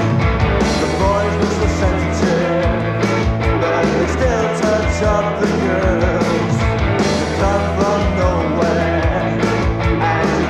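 A rock song with a singer, guitars and drums at a steady beat, played on the radio and recorded off air onto cassette.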